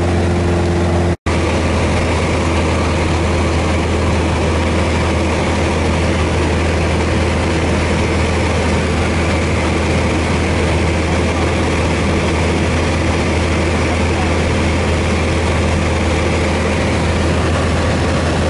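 Piston engine and propeller of a Piper single-engine light airplane droning steadily in flight, heard from inside the cabin. The sound cuts out for an instant about a second in.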